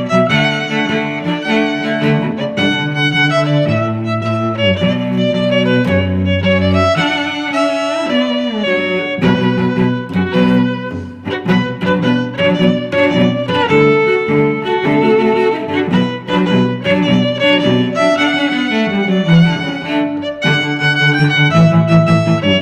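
Background music led by bowed strings: violin and cello playing a steady, busy melody over lower string parts.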